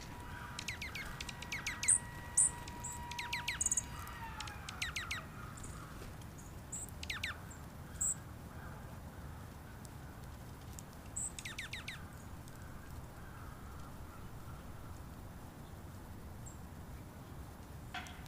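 Small wild birds chirping in short bursts of quick descending notes, with a few sharp high peeps between them, over a faint steady low outdoor rumble.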